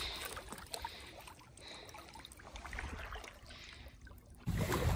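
Faint trickling and small splashes of shallow marsh water around a wading hunter, with scattered little clicks and drips. A louder low rumble sets in abruptly near the end.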